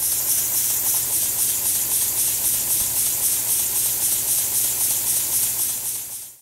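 Model two-cylinder steam launch engine built from Stuart castings, running on compressed air: a fast, even chuffing hiss from its exhaust with a light rattle of the valve gear. It fades out near the end.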